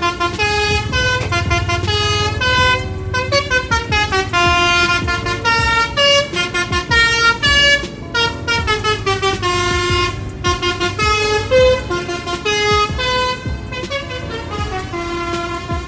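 Basuri multi-tone horn on a large road vehicle playing a tune in quick, short notes that step up and down in pitch, over the low rumble of the vehicle's engine.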